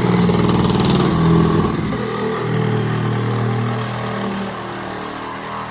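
An engine-driven machine running steadily, its pitch shifting about two seconds in and its level easing somewhat toward the end.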